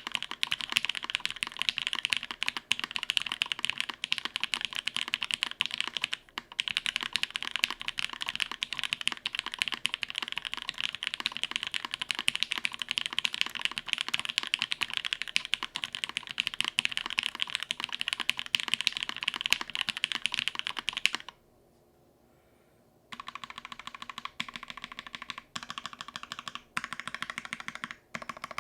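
Fast, continuous typing on a mechanical keyboard with Gateron Box Ink Black V2 linear switches on an undampened carbon fiber plate, under GMK keycaps. The keys clack in a dense, rapid stream, stop for about two seconds near the end, then resume at a less even pace.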